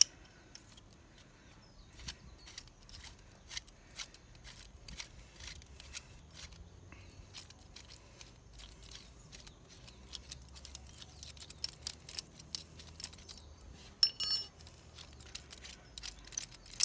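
Hex (Allen) key turning an Allen bolt in an aluminium front axle slider: scattered small metallic clicks and ticks, with a brief ringing metal clink about fourteen seconds in.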